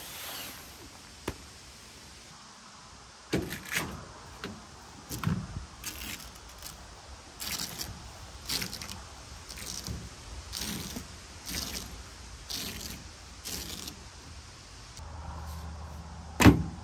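Camping gear being handled in a pickup truck's bed and on its metal tailgate: a run of short scrapes, rustles and knocks as bags are moved, then one loud thud near the end as a bag is set down on the tailgate. A low steady hum comes in shortly before the thud.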